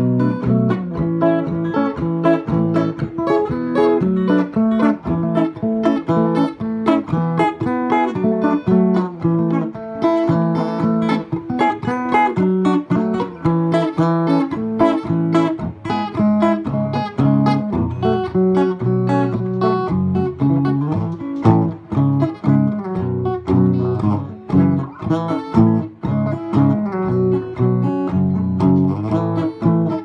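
Custom Anu "Aza" electric guitar with a flame maple and mahogany body, played through a loudspeaker: a continuous improvised jam of quick single-note lines and chords.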